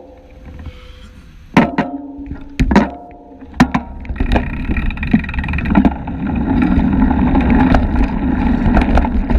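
Street traffic at a city junction heard through a bicycle camera's microphone, with a few sharp knocks in the first few seconds. About four seconds in, a steady wind rumble on the microphone grows louder as the bike rides off.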